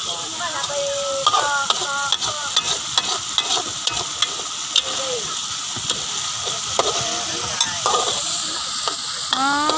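Spice paste with lemongrass sizzling in oil in a metal wok, stirred and scraped with a metal spatula. A steady frying hiss runs under frequent short clicks and scrapes of the spatula against the pan.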